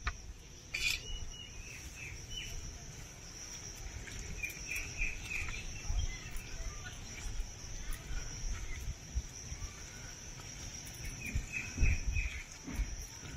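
Chicken being mixed by hand into its spice marinade, giving soft low thumps, the loudest near the end. A steady high insect drone runs underneath, with bird chirps coming in a few short runs.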